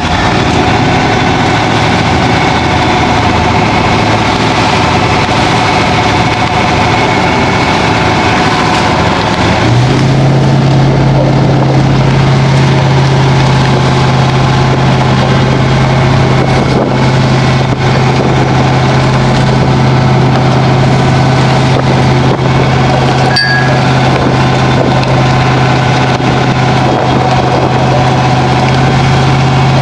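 Fishing boat's engine running steadily. About ten seconds in, its low hum steps up in pitch and the sound grows a little louder.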